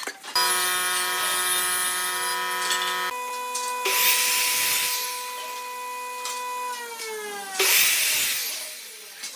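Ryobi sliding mitre saw's motor whining at speed as the blade cuts through a thin strip of pine, about four seconds in and again near eight seconds. The whine drops in pitch just before the second cut and fades out near the end.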